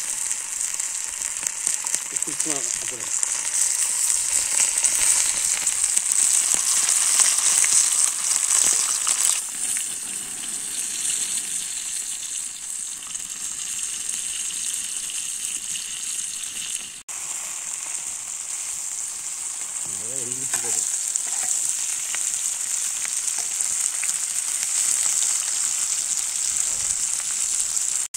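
Masala-coated fish fillets shallow-frying on a flat iron tawa, a steady high hissing sizzle. It cuts out for an instant about two-thirds of the way through, then goes on as before.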